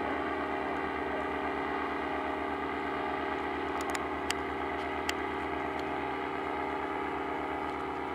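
An engine running steadily, an even drone that holds one pitch, with a few light clicks about four to five seconds in.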